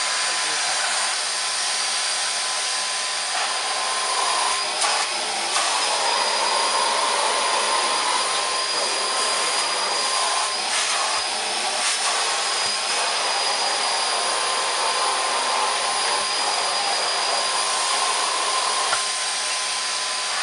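Numatic Charles CVC370-2 cylinder vacuum cleaner's 1000-watt motor running steadily with a whining hiss as its bare hose sucks along the carpet. The sound shifts briefly twice, about a quarter and about halfway through, as the hose end is moved over the floor.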